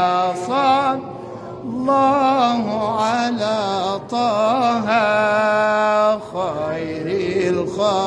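Male munshid singing an Islamic ibtihal (devotional supplication) in long melismatic phrases with wavering, ornamented pitch. The voice drops away briefly about a second in, then returns, holding one long note from about five to six seconds in.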